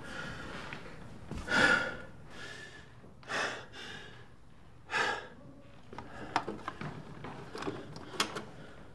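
A man's heavy breaths, three of them a couple of seconds apart, then a run of small clicks and knocks as a vinyl record is handled and set on a turntable.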